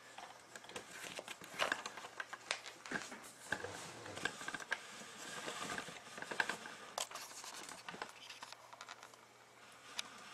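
Scattered light clicks, taps and rustles of handling noise at close range, with no steady rhythm.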